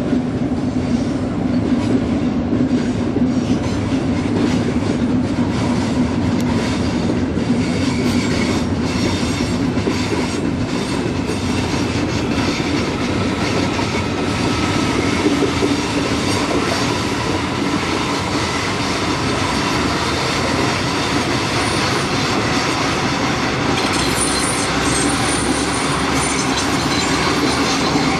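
Passenger trains rolling past on the line, a long ICE high-speed train among them, with a steady loud rolling noise. Wheels click over rail joints in the first half, and a thin high wheel whine or squeal comes in during the second half.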